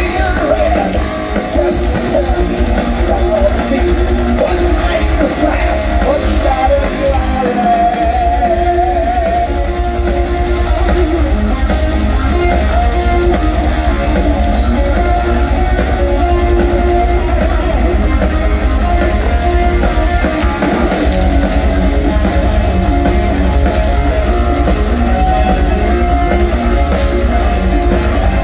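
A heavy metal band playing loud and live: distorted electric guitars over a steady, heavy drum beat, with a deep, booming low end.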